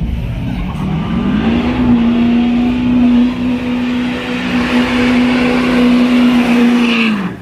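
Car engine revved up about a second in and held at steady high revs for about five seconds, then let off abruptly near the end, as in a burnout.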